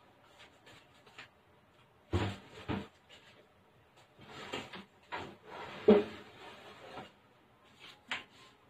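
A roasting pan holding a foil-covered turkey being set down on the open oven door and pushed onto the oven rack: a few knocks and short scraping sounds, the sharpest clank about six seconds in.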